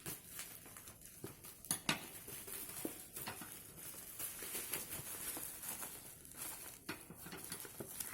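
Handling of the headphone box and packaging: scattered small clicks, taps and rustles, with two sharper clicks close together a little under two seconds in.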